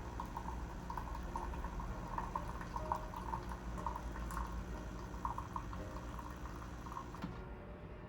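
Fully automatic coffee machine dispensing liquid into a cup during a test extraction after cleaning: a steady low hum with irregular gurgling drips. The flow sound stops abruptly about seven seconds in.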